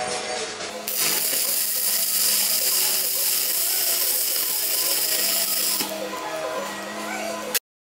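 Electric arc welding on mild steel plate: the arc crackles and hisses steadily from about a second in until near six seconds, then more weakly, over background music. All sound cuts off abruptly just before the end.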